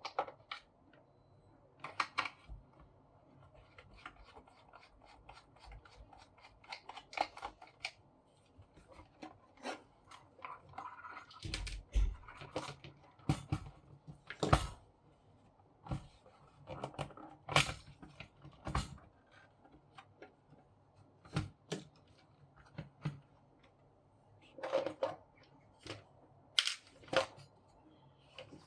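Irregular clicks, knocks and rubbing of a paper laminator's casing and parts being handled and taken apart, with a few louder knocks spread through.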